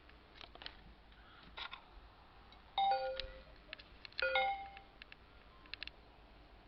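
Windows XP device chime sounding twice from the laptop's speaker, each a short two-note ding about a second and a half apart, as the system detects a USB drive on the PCMCIA USB hub. A few light clicks come between them.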